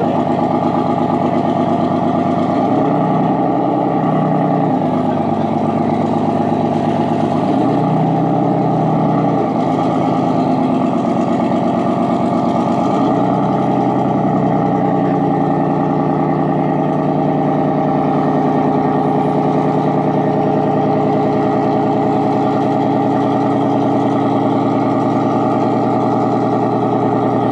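Small fishing boat's engine idling, loud and steady. Its pitch rises and falls briefly three times in the first half.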